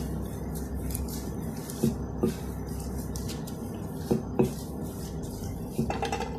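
Wooden rolling pin rolling out a sheet of dough on a silicone baking mat, with soft repeated swishes as it passes back and forth and a few short knocks about two and four seconds in, over a low steady hum.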